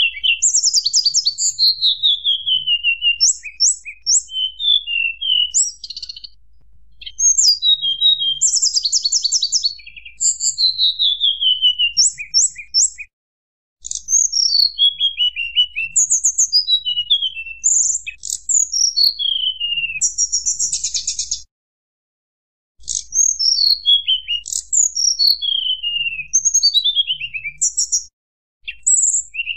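Tledekan gunung songbird singing: high, clear whistled phrases that slide downward, mixed with fast rattling trills. The song breaks off in a few brief silent gaps, near the middle and again later.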